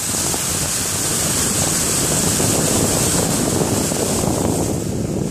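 Vehicle tyres driving through standing floodwater on the road, a steady rushing spray of water, with wind blowing on the microphone.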